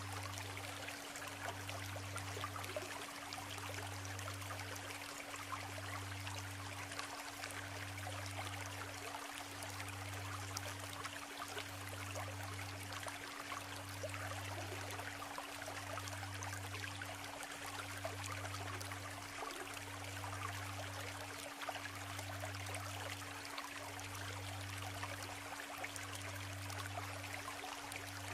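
Isuzu River stream babbling steadily over stones. Under it, a steady low hum and a deeper tone that swells and breaks about once a second.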